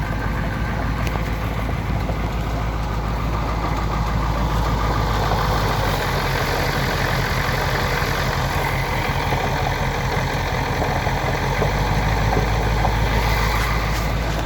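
Converted school bus's engine running steadily as the bus drives along an off-road forest track: a steady low drone under a constant haze of road noise.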